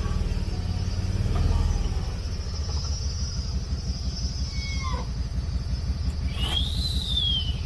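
A vehicle driving with a steady low rumble of engine and tyres. Near the end a high squeal rises and then falls for about a second.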